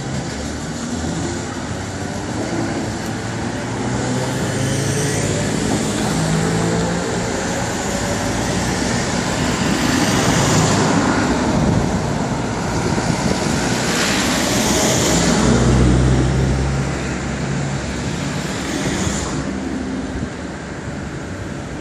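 Street traffic: cars passing one after another on the road beside the tram tracks, each swelling and fading, with a heavier vehicle rumbling past about fifteen seconds in. In the first few seconds the departing tram's motor hum fades into the distance.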